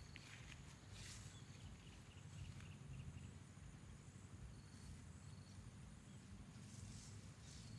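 Faint outdoor ambience: a low steady rumble with thin, high, faint chirping tones and a few soft rustles.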